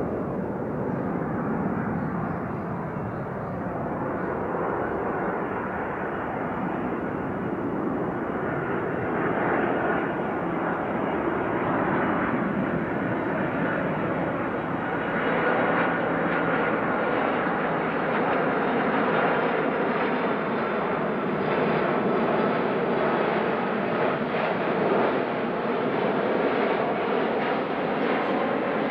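Boeing 767-300 airliner on final approach, its twin jet engines making a steady rushing noise that grows gradually louder and brighter as the plane comes closer.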